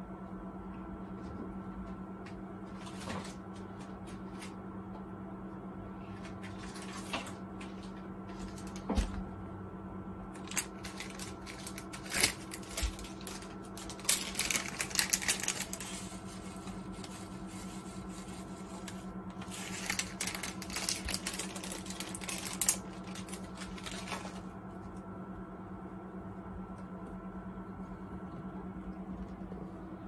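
Plastic packet of black sesame seeds crinkling and shaken over a bowl of rice in two spells, one around the middle and another a few seconds later, with scattered light taps and clicks. A steady low hum runs underneath throughout.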